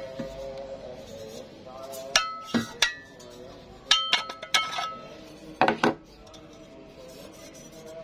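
Light metallic clinks and taps as the welded steel square tube and caster wheel bracket are handled on the workbench, coming in four short clusters with a brief ring after each strike, ending about six seconds in.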